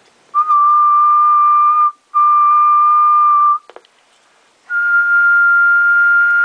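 A person whistling a steady, even note into the transceiver's hand microphone three times. The first two whistles last about a second and a half each, and the third is a little higher and longer. The steady whistle drives the 10-meter transmitter so its power output shows on the wattmeter. A few faint clicks follow the second whistle.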